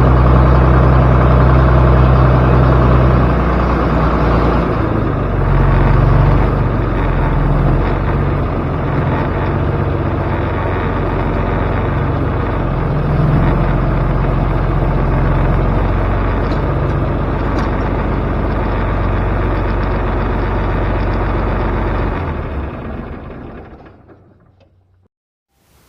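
A large engine running steadily, then shut off near the end and dying away over a couple of seconds.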